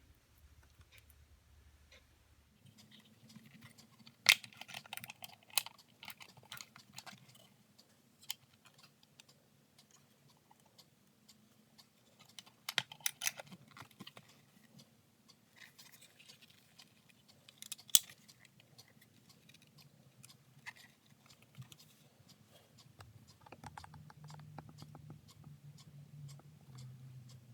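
Faint scattered clicks and taps of small hard objects being handled, with a few sharper clicks about 4, 13 and 18 seconds in, over a low steady hum.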